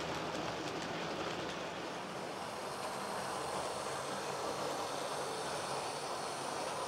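Model train running along the layout's track, a steady rolling noise.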